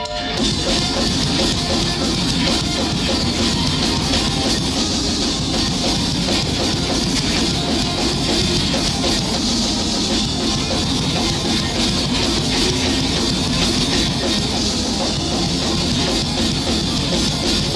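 Heavy rock band playing an instrumental passage with drums and distorted guitars and no vocals; the full band crashes in right at the start, after sustained clean guitar tones.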